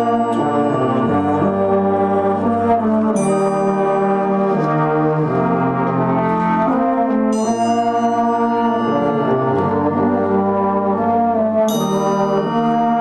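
Brass band playing slow, sustained chords, with a bright struck percussion note sounding three times, about every four seconds.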